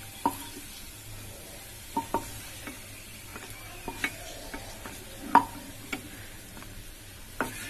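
Cashews and raisins frying in ghee with a faint steady sizzle, stirred with a wooden spatula that knocks and scrapes against the pan every second or two; the loudest knock comes about five and a half seconds in.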